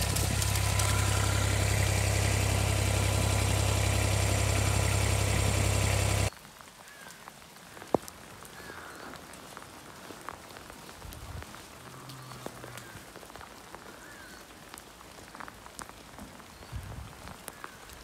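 Kubota diesel utility vehicle's engine running with a steady low hum, cutting off abruptly about six seconds in. Then rain falling, with scattered drop taps and a few faint chirps.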